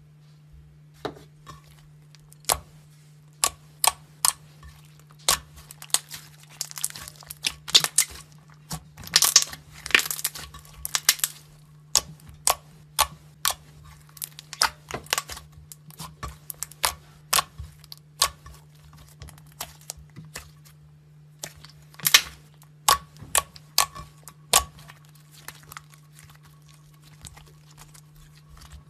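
Thick white slime being kneaded, folded and pressed by hand, giving irregular sticky clicks and pops with denser crackly spells. A steady low hum runs underneath.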